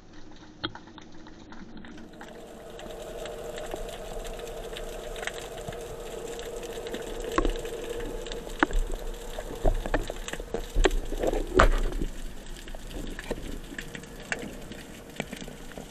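Underwater sound heard through a submerged camera's housing: a muffled wash of water with scattered clicks and knocks, a few of them sharper around the middle, and a steady low hum that comes in about two seconds in and fades after about ten seconds.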